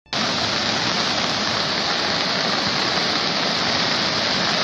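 Steady rushing noise of a muddy flash-flood torrent in heavy rain.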